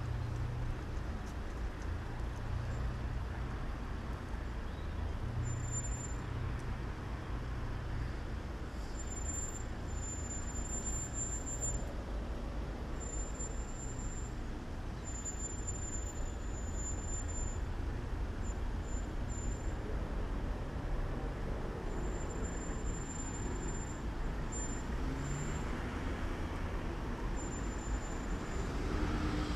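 Road traffic on a town street: car engines and tyres passing, a steady rumble.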